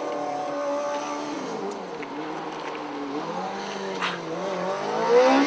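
A racing car's engine running off-screen. Its pitch drops and holds, then climbs steeply near the end as it revs up.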